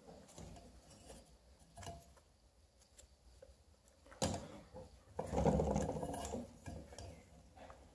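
Gloved hands working a stuck plastic bulb holder on a stainless-steel lamp base: scraping and light clicks, a sharp knock about four seconds in, then a second or so of rubbing and rustling.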